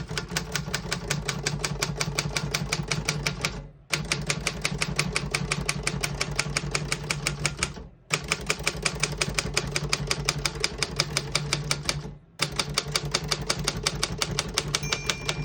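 1948 Royal KMM manual typewriter's type bars striking the platen in rapid, steady keystrokes, in four runs with brief pauses between them. Near the end the margin bell rings once with a thin tone, marking the end of the line at the margin.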